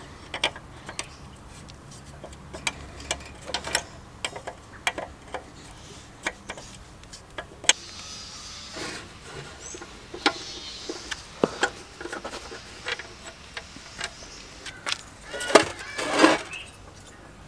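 Hand tools on the Kawasaki KF100 generator engine during dismantling: a steel wrench clinking and ratcheting on the engine's bolts, giving many irregular sharp clicks and knocks. A louder scrape and knock of metal parts comes near the end.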